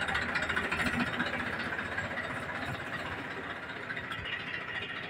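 TAFE 7250 DI tractor's diesel engine idling steadily, with a rapid, even beat.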